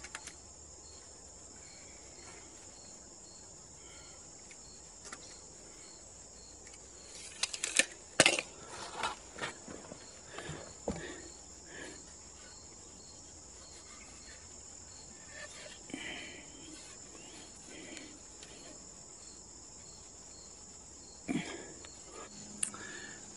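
Insects, crickets by the sound, trilling steadily and high-pitched, with a regular chirp about twice a second. A few knocks and rustles break in, loudest about eight seconds in and again near the end.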